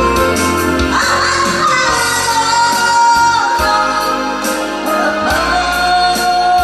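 A woman singing a held, wavering melody over amplified backing music with a bass line and a drum beat.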